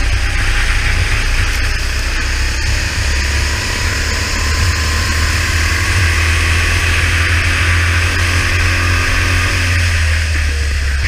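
Go-kart engine running at speed on a wet track, heard from an onboard camera, its note climbing slowly along the straight. A steady low wind rumble on the microphone runs underneath.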